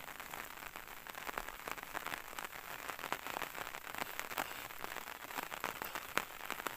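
Rain falling, many separate drops landing as quick, irregular ticks over a steady hiss.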